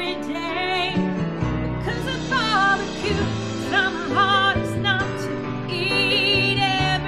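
A woman singing a slow pop ballad over an instrumental backing track, holding her notes with vibrato.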